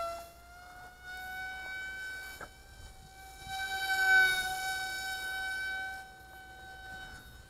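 Small RC plane's 1106 brushless motor and propeller in flight: a steady high-pitched whine that grows louder about four seconds in as the plane passes close overhead, then fades.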